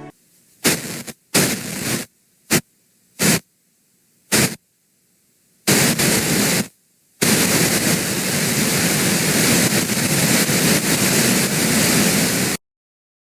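Static hiss in abrupt bursts: six short blasts of varying length that switch sharply on and off, then a steady stretch of static lasting about five seconds that cuts off suddenly.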